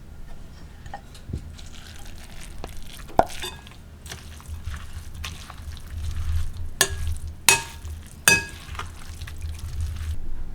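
Cooking sounds: stirring and rustling in a pan or bowl, with three sharp ringing clinks of a utensil against cookware a little past halfway.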